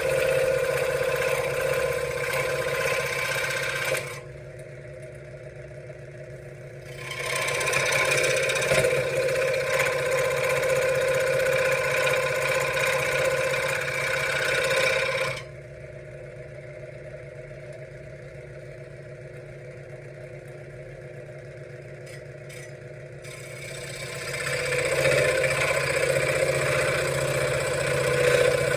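Benchtop scroll saw running, its reciprocating blade cutting wood. The sound is louder in stretches and drops to a quieter hum twice, about four seconds in and again from the middle until near the end.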